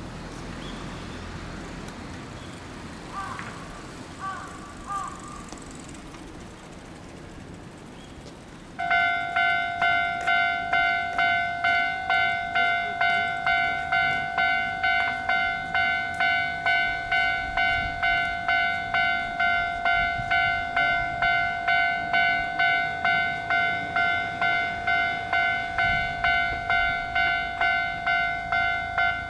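Japanese railway level-crossing alarm bell starting suddenly about nine seconds in, then ringing in a steady repeating ding about twice a second, the warning that a train is approaching and the barriers are coming down.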